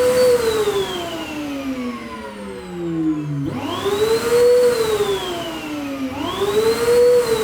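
Small dust extractor's motor being switched on and off by remote: its whine winds down, spins up again about three and a half seconds in and winds down, then spins up once more near six seconds and winds down again.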